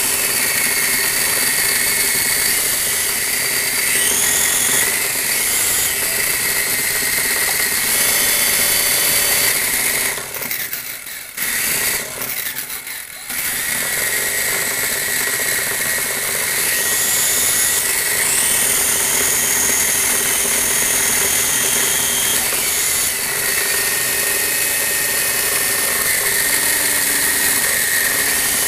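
Small electric motors and plastic gears whirring: a toy helicopter's spinning rotors and the Lego Technic motor gearing that moves it, a steady whine whose pitch slides up and down several times as speeds change. The sound drops back twice briefly near the middle.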